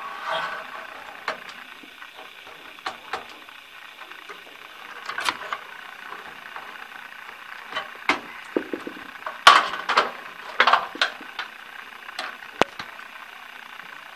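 Cables and plastic connectors handled inside a steel computer case: scattered clicks, taps and scrapes as a SATA cable is pushed into its socket, with a denser run of louder clicks about two thirds of the way through.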